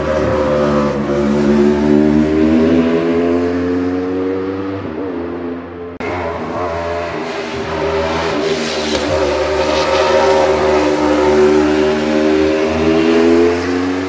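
Race car engine running at high revs, its pitch climbing slowly for several seconds. It breaks off about six seconds in, then climbs slowly again.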